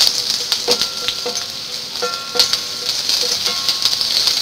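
Sliced onions sizzling in hot oil in a stainless steel pot. A wooden spatula stirs them, knocking and scraping against the pot several times, so the pot rings briefly.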